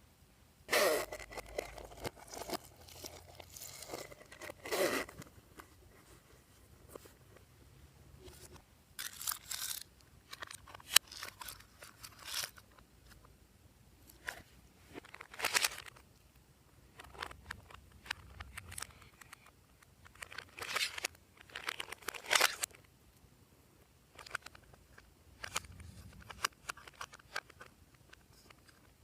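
Slime being worked by hand, with irregular bursts of crunching and sticky tearing sounds and short pauses between them.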